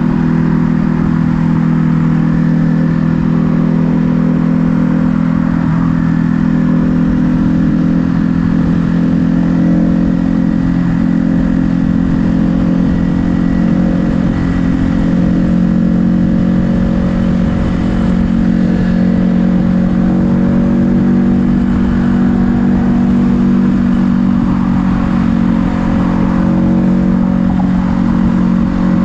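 Ducati Hypermotard 950 SP's 937 cc L-twin engine running at a steady pitch, the motorcycle holding a fairly constant speed.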